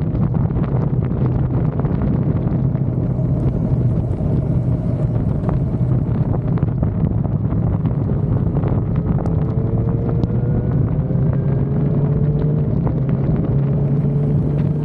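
Suzuki motorcycle engine running on the road under heavy wind noise on the microphone. The engine's pitch rises slowly over the second half as the bike picks up speed.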